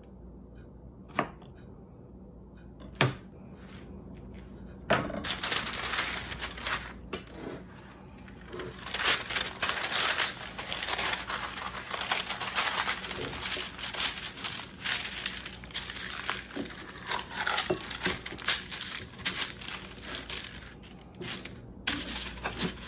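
Two sharp knocks of a kitchen knife cutting down onto a plastic cutting board, about one and three seconds in. Then a large sheet of paper crinkles and rustles steadily for most of the rest as it is unfolded and smoothed flat.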